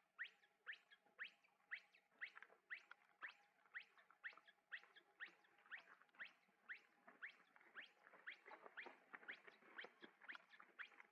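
Faint, high-pitched animal calls: short upward-sweeping chirps repeated evenly at about two a second.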